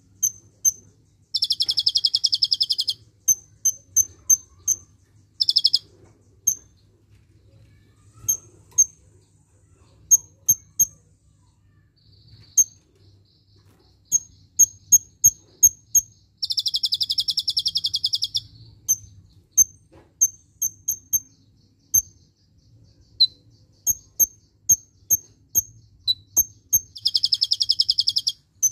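Kolibri ninja sunbird singing: runs of sharp, high single chips broken four times by fast, dense rattling trills, the "cililin shots" in its song.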